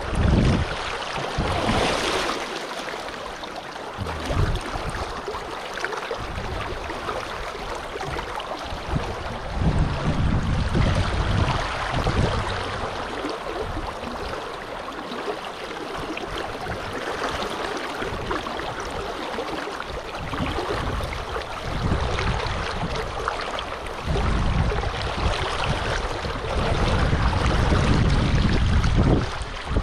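River water rushing steadily, with irregular gusts of wind buffeting the microphone in low rumbles.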